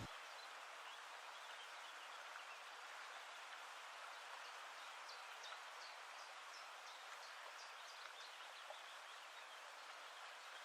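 Faint steady hiss with many small, light crackles scattered through it.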